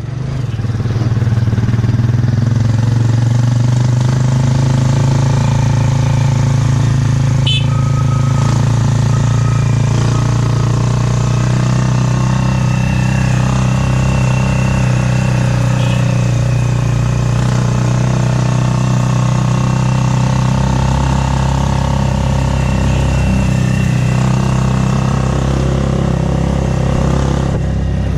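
Motorcycle engine of a Philippine tricycle (a motorcycle with a sidecar) running steadily while under way, heard from inside the sidecar.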